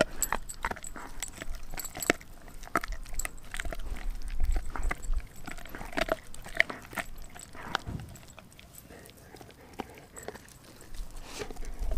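Doberman chewing a raw frozen pig's foot: irregular crunching and clicking of teeth on bone and frozen meat, quieter for a few seconds near the end.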